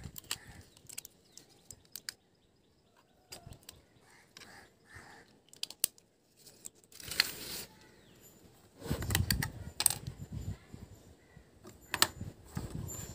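Scattered small plastic clicks, taps and handling noise from fitting AA batteries into a Dell wireless mouse and turning the Dell wireless keyboard over, with a louder clatter about seven and nine seconds in and a sharp click near the end.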